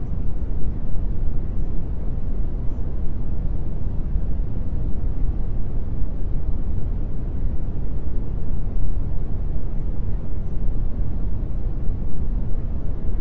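Steady, even low rumbling noise with no tone or rhythm, the masking noise of a subliminal affirmation track.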